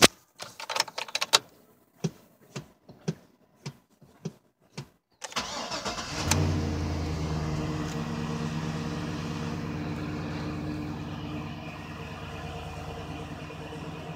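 Chevy pickup truck's engine started for the first time after an oil change with fresh oil. After a few seconds of scattered light clicks, the starter cranks for about a second and the engine catches, then settles into a steady idle that eases down slightly as the revs drop.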